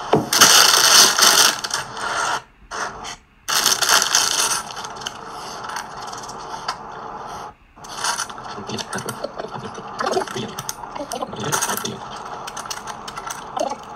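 A bag of LEGO Technic parts rustles and its pieces clatter out onto a table in two loud bursts in the first few seconds. From about the middle on comes a run of small plastic clicks as track-link pieces are snapped together by hand.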